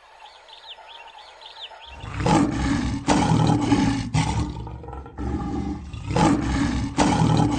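Lion roaring and growling in deep, rough surges that start about two seconds in and swell again roughly every second. Before that, birds chirp faintly.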